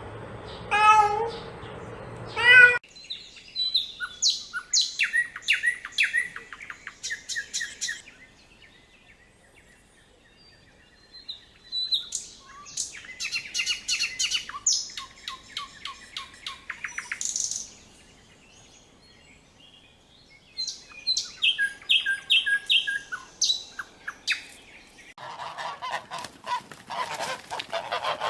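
A small bird singing in rapid runs of high chirps, broken by two pauses of a few seconds. A cat meows twice at the very start, and a harsher, noisier sound comes in near the end.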